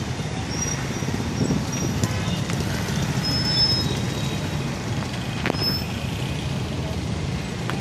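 Steady low rumble of road traffic, with a few short high-pitched tones, one held for about half a second, and a couple of faint clicks.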